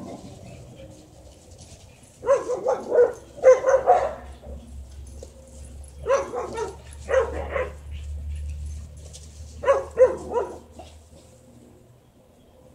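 Dogs barking at a chain-link fence line, in five short flurries of quick barks spread a few seconds apart.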